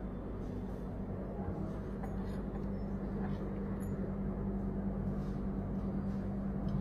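Room tone: a steady low electrical hum over a faint background hiss, with a few soft ticks.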